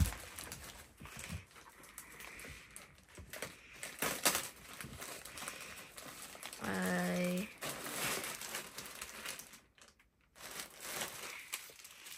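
Plastic shipping bag and plastic-wrapped clothes crinkling and rustling as they are rummaged through and pulled out by hand, with a short pitched hum about halfway through.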